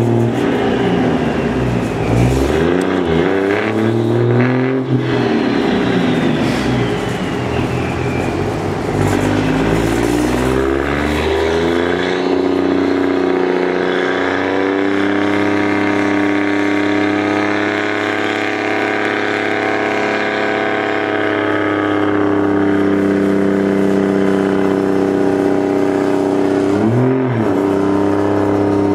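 Truck engine running on a chassis dynamometer, heard at the end of its exhaust duct. It is revved up and down several times, then held at high, steady revs for a long pull, with a quick dip and recovery near the end.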